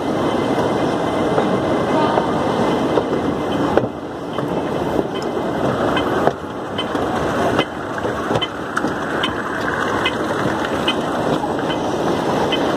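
Steady wash of noise in a large, busy airport terminal hall: a murmur of many people mixed with the running noise of an escalator, broken by a few brief dips in level.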